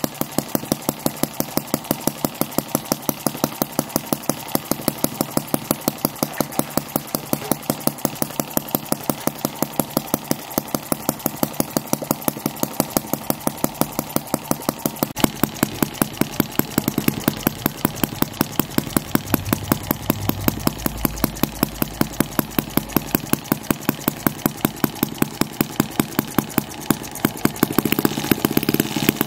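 A 1 cc sideshaft model engine running steadily with an even beat of sharp firing pulses, about three to four a second, while driving a belt-driven brass duplex coolant pump. It is running and pumping smoothly.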